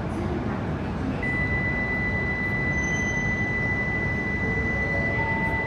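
Steady background noise of a Shinkansen station platform. A thin, steady high-pitched tone starts about a second in and holds unchanged.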